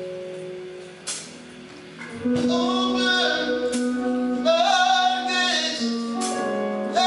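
A man singing a gospel worship song into a microphone over a band's held chords, with a few crashes. The voice comes in about two seconds in, with long, wavering sung notes.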